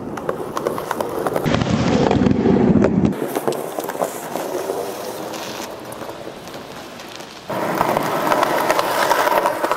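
Skateboard wheels rolling over rough pavement: a gritty rumble full of small clicks, which jumps in loudness and tone a few times.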